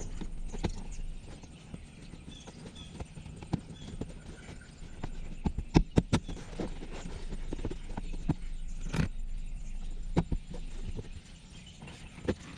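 Irregular clicks and knocks of plastic interior trim panels and clips being handled and fitted back into place, with a cluster of loud knocks about halfway through and another sharp one a little later, over a low hum.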